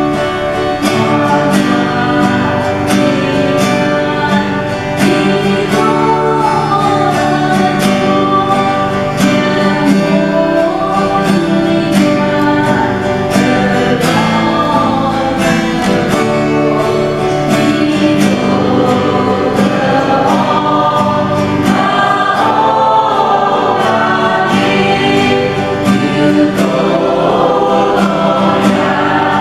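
A choir singing a hymn in unison over a strummed acoustic guitar that keeps a steady beat.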